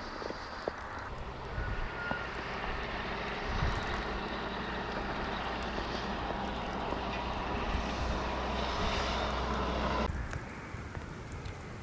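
Vehicle engine running with road noise, a steady drone that builds slowly and drops off suddenly about ten seconds in.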